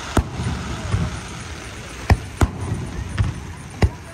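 Aerial firework shells launching and bursting, about five sharp bangs, with a low rumble between them.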